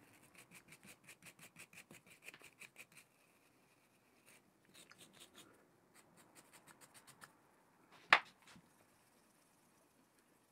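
Brass wire brush scrubbing dirt off the steel lead screw of a lathe's cross slide in quick short strokes, about six a second for the first few seconds, then in two shorter spells. A single sharp click about eight seconds in.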